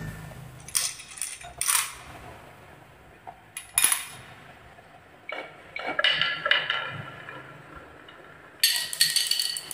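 Marbles rolling and clacking down a wooden zigzag marble run: a few sharp separate clicks, then runs of rattling as they bounce through the curves, with a fast dense rattle near the end.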